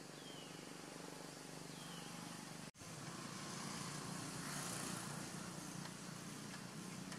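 Faint, steady outdoor background hiss with a low hum, and two faint short falling chirps in the first two seconds; the sound drops out briefly at a cut near the middle.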